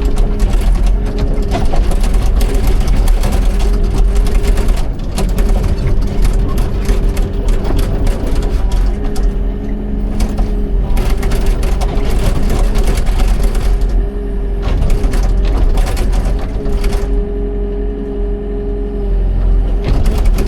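Excavator's diesel engine running steadily with a constant whining tone over a low rumble and dense mechanical clatter, the level easing and picking up again a few times as the machine works.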